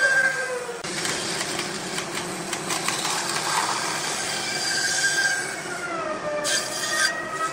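Wood lathe turning: a cutting tool scraping the spinning wood, with a squeal whose pitch slowly wanders. Near the end come a few sharp scraping strokes.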